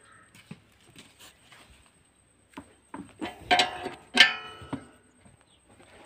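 Open-end spanner working a moped's silencer mounting bolt: light metal ticks and clicks, then two louder ringing metal clinks about three and a half and four seconds in.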